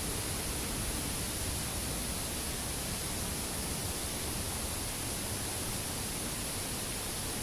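Curug Cimarinjung waterfall rushing: a steady, unbroken noise of falling water.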